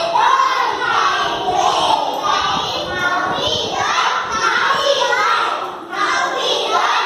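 A group of young children's voices chanting a rhyme together in a sing-song way, echoing in a large room.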